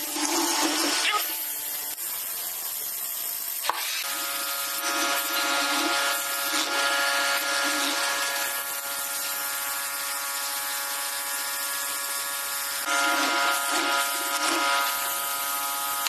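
A power tool working on wood: steady noise of cutting or sanding, with a steady motor whine setting in about four seconds in.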